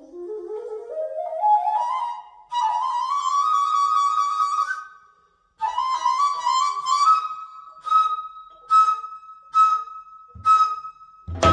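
Daegeum (Korean large bamboo transverse flute) playing a slow rising run into its high register, breaking off briefly about five seconds in. It then climbs again to a high note that it holds and re-accents in a regular pulse. Deeper accompanying notes start sharply near the end.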